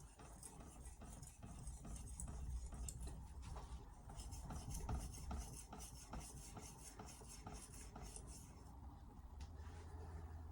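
Carbon-steel Hatsukokoro knife blade stroked back and forth on an Altstone RIN 5000-grit splash-and-go whetstone: a light, rhythmic scraping of steel on the wet stone, about four strokes a second at its steadiest, stopping near the end.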